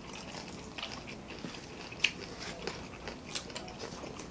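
People chewing food up close, with soft crunches and small wet mouth clicks scattered through; one sharper click about two seconds in.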